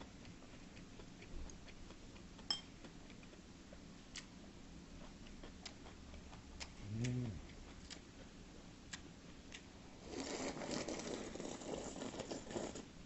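Chopsticks clicking lightly against dishes now and then, with a short voiced hum about seven seconds in. About ten seconds in comes nearly three seconds of loud slurping as dried-pollack soup (bukeoguk) is drunk straight from the bowl.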